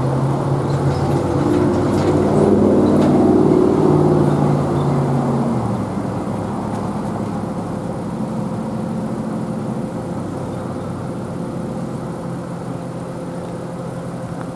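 Road traffic: a motor vehicle's engine running close by, loudest about two to four seconds in, then fading away about six seconds in, leaving steady traffic noise with a low hum.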